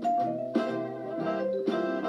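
Instrumental music: a melody of pitched notes over changing chords, with new notes sounding about every half second to second.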